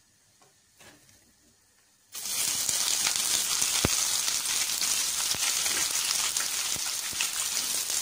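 Near silence for about two seconds, then sliced onions drop into hot oil with whole spices in a kadai and start sizzling loudly and steadily, with a few sharp clicks through the sizzle.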